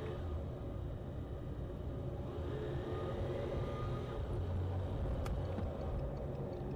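Car engine and road rumble heard from inside the cabin as the car drives slowly. About five seconds in there is a click, then the turn-signal indicator starts a steady ticking as the car waits at the junction.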